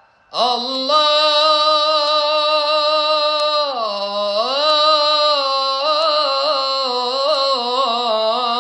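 A man singing an Arabic Islamic devotional supplication (inshad) in one long held melismatic note, without words. The voice drops lower about four seconds in and then turns through quick ornamented trills. It comes in after a short breath pause at the start.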